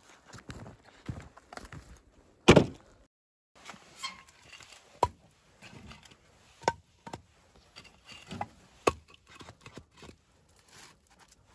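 Scattered knocks, clicks and clunks of things being handled, with one loud heavy thud about two and a half seconds in.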